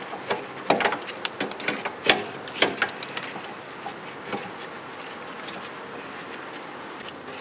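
Metal parts clinking and knocking as the bolts are unthreaded and a caliper carrier bracket is taken off a car's front hub. There are about eight sharp knocks in the first three seconds, then only quiet handling noise.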